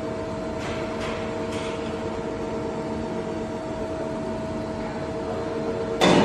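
Large CNC horizontal boring and milling machine (Toshiba Shibaura BTD-110H) running with a steady machine hum and a few held tones. A short, loud noise breaks in about six seconds in.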